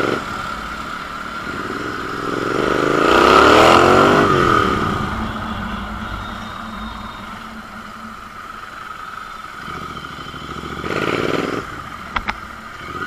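Royal Enfield Continental GT 650's 650 cc parallel-twin engine and exhaust revving up hard a few seconds in, then dropping back as the throttle closes. Near the end there is a second, shorter burst of throttle and a few sharp clicks.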